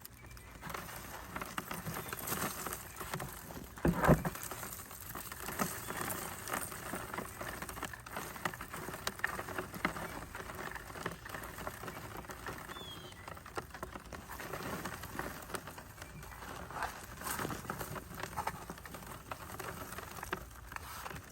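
Rustling and crackling of potting soil and sweet potato vines as a plant is pulled and dug out of a pot by hand, with a loud thump about four seconds in.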